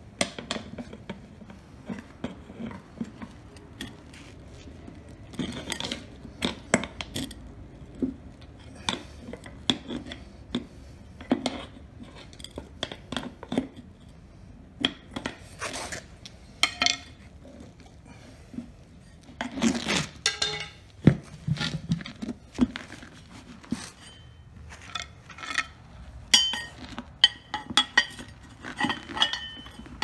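Pry bar and tire iron clinking, knocking and scraping against a lawn tractor's steel wheel rim as the tire bead is levered off by hand. The clanks come irregularly, and a few ring briefly.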